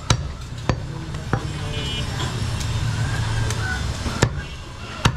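Butcher's cleaver chopping goat meat on a wooden log block: three sharp strikes in the first second and a half, a pause, then two more near the end, over a steady low rumble.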